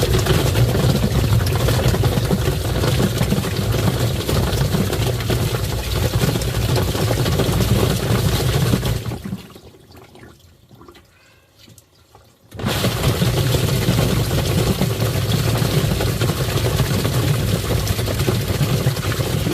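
Twin-tub washing machine running its wash cycle, the motor humming steadily under churning water. The sound stops for about three seconds near the middle, then starts again.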